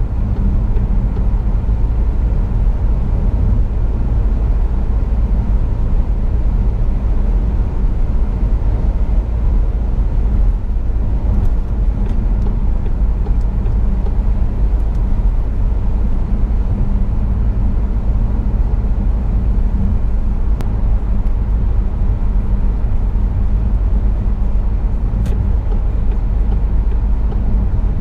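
Steady cabin noise of a car cruising on a motorway: a constant deep rumble of tyres, wind and engine with a faint hum.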